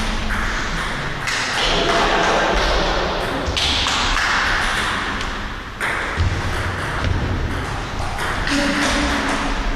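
Table tennis ball clicking back and forth off the rackets and the table during a rally.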